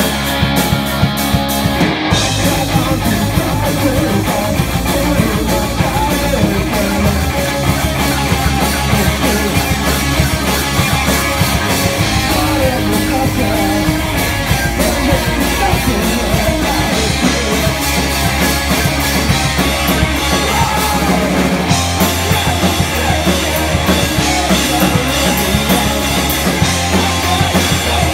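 Rock band playing live and loud: two electric guitars, bass guitar and drum kit playing together without a break.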